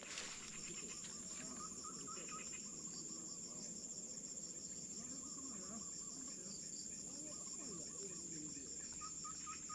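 Insect chorus: a steady, high-pitched shrill trill with a fine pulsing, carrying on throughout, with faint wavering lower calls beneath it.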